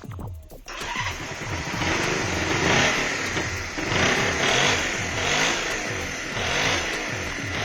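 Honda CB125 motorcycle engine starting up less than a second in and then running with the revs rising and falling, over background music with a steady beat.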